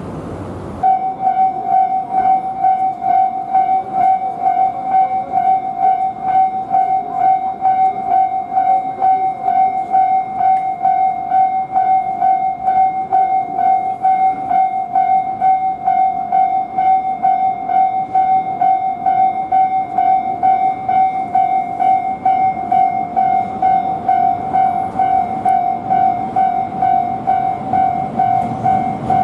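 Japanese railway level-crossing alarm ringing: an electronic bell tone on one steady pitch, striking about twice a second, starting abruptly about a second in.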